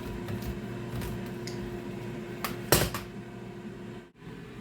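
Kitchenware being handled: a few light clicks and one sharp metal-and-dish clatter about two and a half seconds in, as a can of chickpeas is drained into a colander. A steady hum runs underneath and cuts off shortly before the end.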